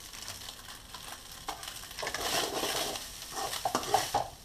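Rice for biryani frying and sizzling in ghee in a metal pan, stirred with a metal spoon. The sizzle grows louder about halfway through, and a few spoon scrapes and knocks against the pan come near the end.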